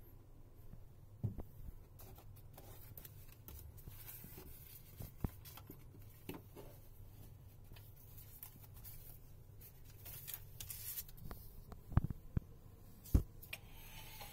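Paper minibar price list being handled and rustled, with a few sharp knocks as things are handled and set down, about five, twelve and thirteen seconds in. A low steady hum runs underneath.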